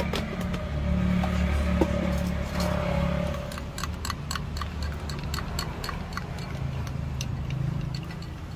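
Low rumble of road traffic, loudest in the first few seconds as a vehicle passes. From about three and a half seconds in, a run of light clinks sounds, several a second.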